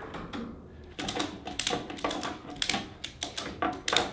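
Ratchet strap buckle being worked by hand to release its hold on the garage door rail. A quick irregular run of sharp metal clicks starts about a second in and goes on to near the end.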